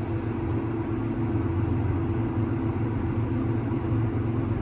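Combine harvester running steadily while harvesting soybeans: an even engine hum with a constant low drone and a steady higher tone.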